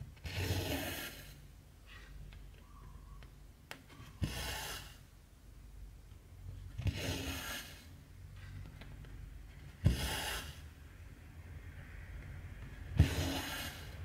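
Cotton embroidery thread pulled through 14-count cross-stitch fabric in five strokes, about one every three seconds. Each stroke starts with a sharp tick, then a brief hiss as the thread slides through the cloth.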